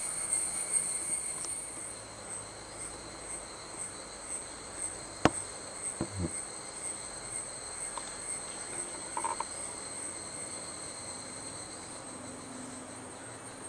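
Steady high-pitched whine over a faint hiss, with a single sharp click about five seconds in and a couple of soft low thumps just after.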